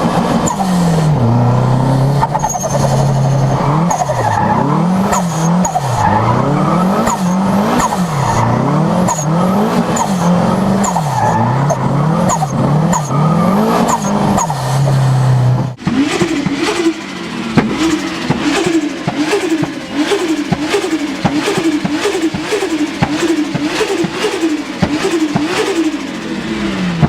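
Turbocharged car engines revved in quick repeated blips, the pitch rising and falling about once a second or faster, with a short high chirp from the turbo each time the revs drop. About halfway through a second car takes over, revving even faster up and down with a rapid clicking chatter from the turbo.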